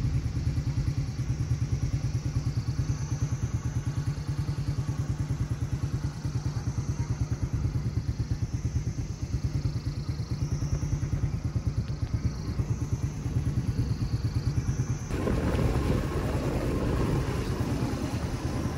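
Motorcycle engine running steadily while riding, a fast even pulse. About three-quarters of the way through, a louder rush of wind and road noise joins it.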